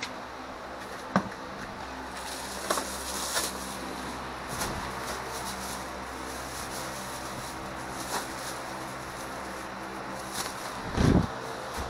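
A plastic trash bag and scoop handled in straw bedding: scattered light clicks and rustles over a steady low hum, with a heavier thump near the end.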